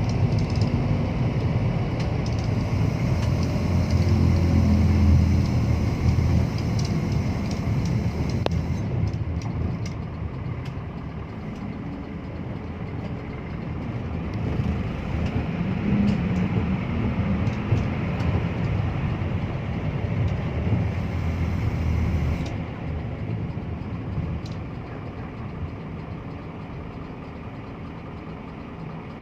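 Engine and road noise of a moving motor vehicle, swelling about four to six seconds in and again around the middle, then easing off over the last several seconds.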